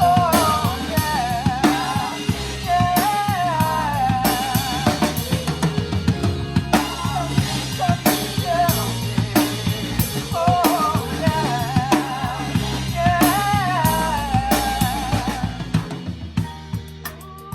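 Live band music led by a close-miked drum kit playing a steady groove of bass drum, snare and rimshots, under a wavering lead melody with vibrato. Near the end the band drops back and gets quieter, leaving crisp ticks.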